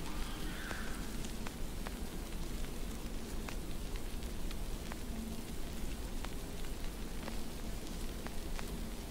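Crackling surface noise added to old film footage: a steady hiss with scattered sharp clicks and pops.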